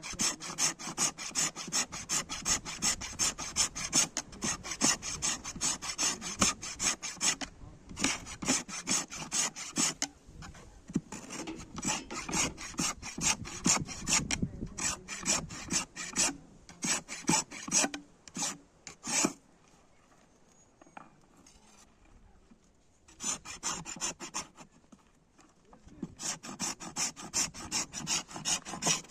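Hand file rasping in rapid back-and-forth strokes, several a second. The strokes stop for a few seconds past the middle, then pick up again.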